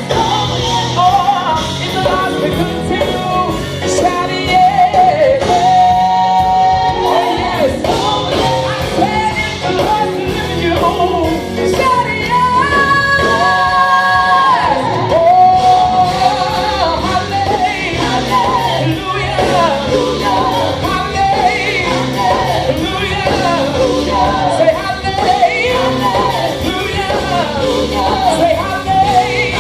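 Live worship music: a band and singers performing a praise song, with shouts from the congregation.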